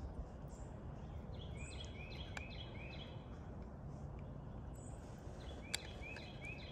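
A songbird singing two runs of short repeated notes over steady outdoor background noise, with two faint clicks.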